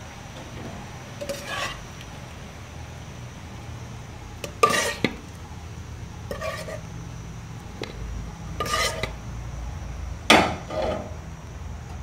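Steel ladle scraping and knocking against aluminium cooking pots as cooked rice and beef masala are spooned into layers. There are five or six short clattering scrapes, the loudest about ten seconds in, over a low steady hum.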